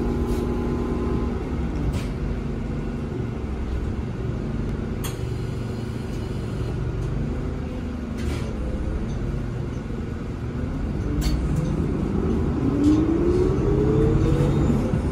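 Cabin sound of a NovaBus LFS CNG city bus, with its Cummins L9N natural-gas engine and Allison six-speed automatic: a steady low engine and road rumble with a few sharp rattles. In the last few seconds a rising whine comes in and the sound grows louder as the bus gathers speed.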